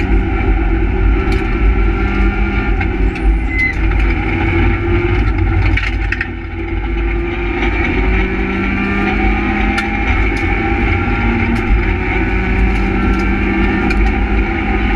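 Renault Twingo R1 rally car's engine heard from inside the cabin, driven hard, its pitch climbing and falling through the gears. It dips briefly about six seconds in, then climbs again. Steady road and tyre rumble runs underneath, with occasional sharp clicks.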